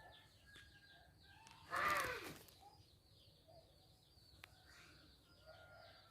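Small birds chirping faintly and continuously in quick, repeated high notes. About two seconds in, a single louder call slides down in pitch.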